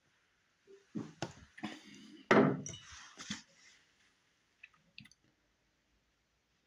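A person taking a swig of beer from a glass: sipping and swallowing sounds over about three seconds, loudest about halfway through, followed by a couple of light clicks.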